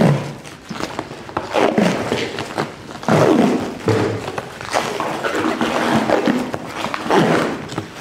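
A large plastic car cover rustling and crinkling as it is dragged across a car roof, in repeated tugs about a second apart, with squeaky groans as it rubs over the paint and glass.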